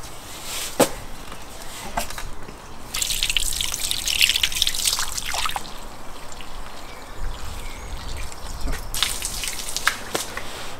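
Salt pouring from cartons into a large bowl with a hissing trickle, and hands stirring through the salt in the bowl. There are two long pours or stirs, the first about three seconds in and the second near the end, with a few sharp clicks and taps of the cartons between them.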